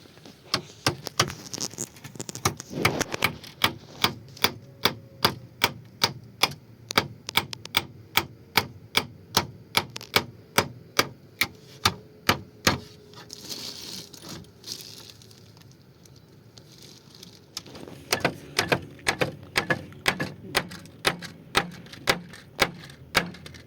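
Rapid, evenly spaced sharp knocks, about two and a half a second, in two runs with a pause of a few seconds between them.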